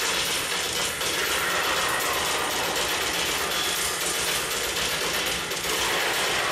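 Soundtrack of a projection-mapping show played over loudspeakers: a steady, dense mechanical clatter, a machine-like sound effect, with no pause in it.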